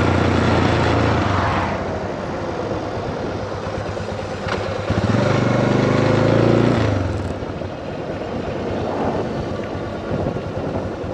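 Motorcycle engine running under way, with wind rushing past. The engine swells near the start and again in the middle, then settles quieter as the bike rolls slowly across a parking lot.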